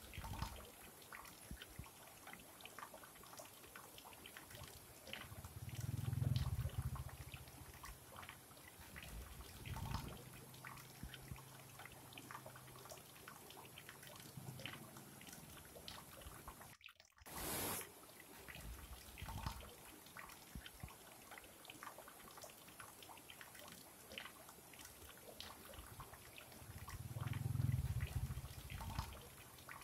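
Small rocky stream splashing and trickling over low cascades, with many small drips and splashes. A few low rumbles swell and fade, the loudest about a fifth of the way in and near the end, and the sound cuts out briefly just past halfway before a short burst of noise.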